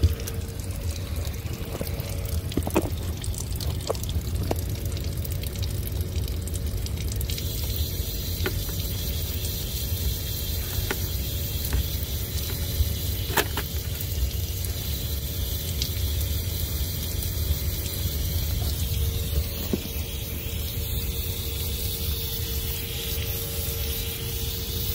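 Water spraying and splashing steadily from a leaking valve on CPVC piping, with a steady low hum underneath and a few faint knocks. The water keeps running because the isolation valves are stuck and won't close.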